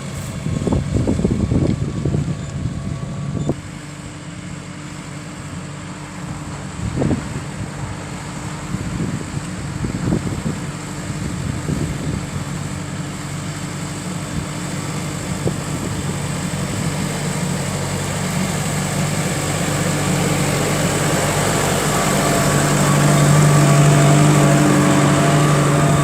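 Case 120 tractor engine running steadily under load as it pulls a four-furrow reversible plough. It grows louder from about two-thirds of the way in and is loudest near the end as it comes closer.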